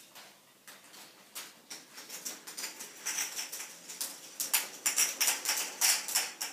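K'Nex fruit machine's plastic mechanism clicking and clattering as it pays out a win of eight balls. The clicks grow louder and closer together, ending in a quick run of sharp clicks about four or five a second.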